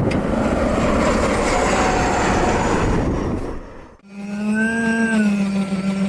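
Train ploughing through deep snow drifts: a loud, even rushing rumble. After a brief drop-out about four seconds in, a strong steady pitched drone takes over, bending up slightly and settling back.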